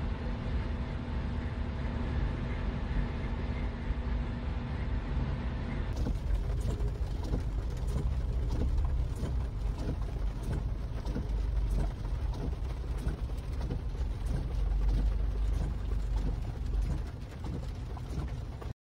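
Steady engine and road noise inside a vehicle cab at highway speed, with a low hum. About six seconds in it changes to heavy rain pelting a car, heard from inside: a dense patter of drops on the roof and windows over a low rumble, cutting off abruptly near the end.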